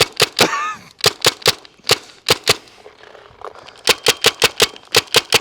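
Tippmann TMC mechanical paintball marker firing shot after shot on compressed air: scattered shots at first, a pause of about a second in the middle, then a rapid string of about five shots a second.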